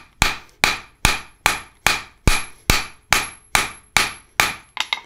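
Cross-peen hammer striking a hot steel flat bar on an anvil, about a dozen evenly paced blows at roughly two and a half a second, each with a short metallic ring, spreading the bar's end. The bar is salvaged stock that turned out to be high-carbon steel.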